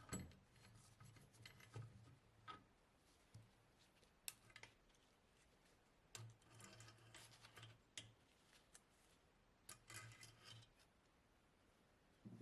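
Faint, scattered clicks and short scrapes of small metal parts and hand tools being handled while a cylinder head is stripped down.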